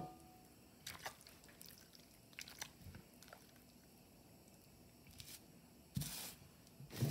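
Pork cutlet being breaded by hand: faint wet squishes and light taps as it is dipped through beaten egg in a glass bowl, then louder gritty rustles about six and seven seconds in as it is pressed into the ground pork rind and almond flour breading.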